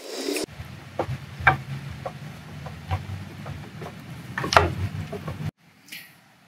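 PVC pipe sections of a towfish body being handled and turned: scattered light knocks and rubbing over a low steady hum. The hum stops abruptly about five and a half seconds in.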